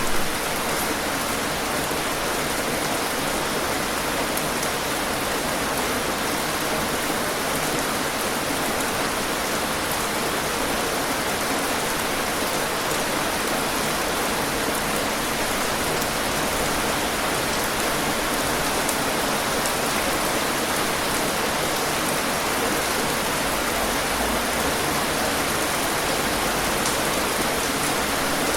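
Steady rain falling on surfaces, an even hiss with fine droplet patter.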